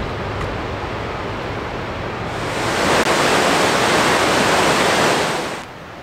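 Steady rush of white water from a river and waterfall, an even hiss. It grows louder about two seconds in and drops off abruptly near the end.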